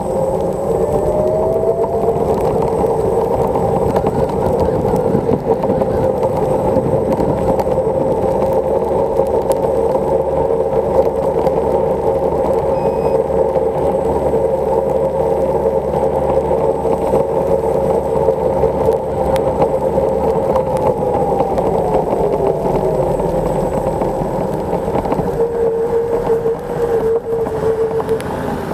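Xiaomi Mijia M365 electric scooter riding on a wet road: the hub motor's whine rises in pitch as it speeds up, holds steady while cruising, then falls as it slows about three-quarters of the way through. Under it runs a steady rush of wind and tyre noise.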